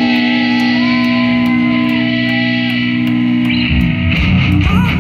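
Live rock band: a held, ringing electric guitar chord with guitar notes sliding in pitch over it and a steady high tick about twice a second, then drums and bass come in hard about three and a half seconds in.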